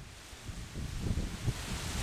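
Gusty wind buffeting the camera microphone, a low rumble that drops away near the start and builds again toward the end with a rising hiss.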